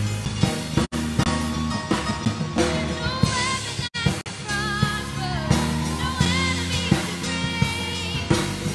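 Children's choir singing a worship song with a live band and drum kit. The sound drops out briefly twice.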